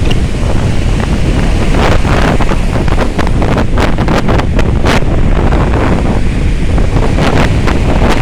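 Heavy wind buffeting the microphone over the surf of a stormy sea, with waves breaking and splashing again and again.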